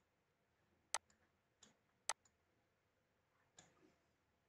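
Computer mouse clicking in a quiet room: two sharp single clicks about a second apart, then a few fainter clicks near the end.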